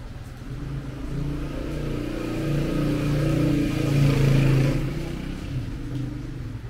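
A motor vehicle passing on the wet street: its engine hum swells to loudest about four seconds in and then fades, with a hiss that rises and falls along with it.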